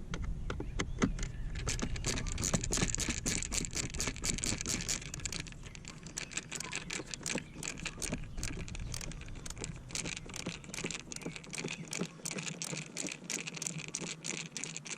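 Rapid, irregular metallic clicking and rattling of hand tools working on panel screws, with a low rumble that fades out about halfway through.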